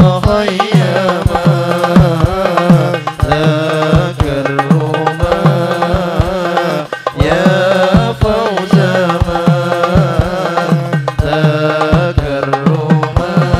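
Sholawat singing: a male lead voice draws out a long, wavering devotional line, with hand drums beating a quick, steady rhythm.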